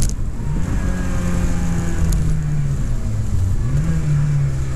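Rally car engine running hard, heard from inside the cabin. The engine note sinks as the car brakes heavily, then jumps back up about three-quarters through as it changes down, with road and wind noise underneath.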